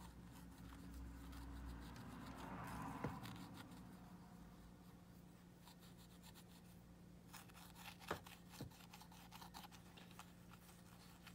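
Faint scratching and rubbing of a cotton swab working baking-soda paste into a corroded plastic battery compartment, strongest in the first few seconds. There are two light clicks about eight seconds in.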